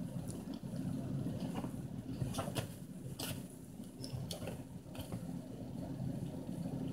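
Two Chihuahuas play-growling at each other in a continuous low, rattling growl, with a few sharp scuffling clicks about two to three seconds in.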